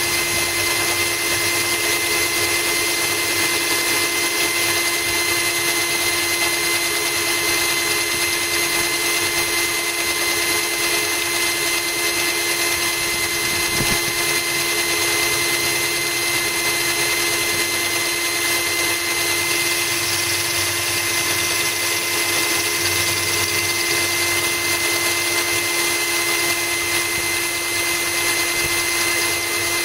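Cordless drill running steadily with a core bit grinding into a glass bottle, the cut kept wet by a trickle of hose water. The motor's whine stays at an even pitch throughout.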